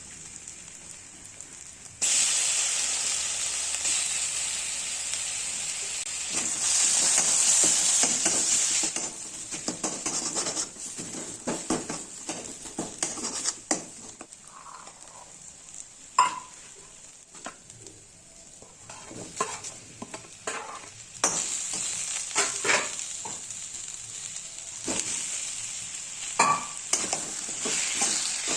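Food frying in hot oil in a pan: a steady sizzle that starts suddenly about two seconds in, fades in the middle while a spatula scrapes and taps against the pan, and grows louder again near the end.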